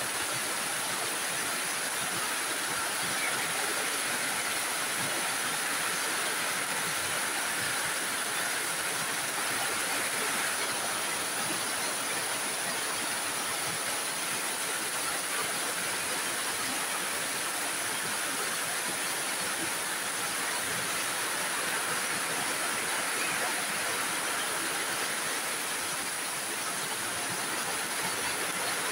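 Heavy rain pouring steadily onto paving, leaves and roofs: a dense, even hiss of falling water.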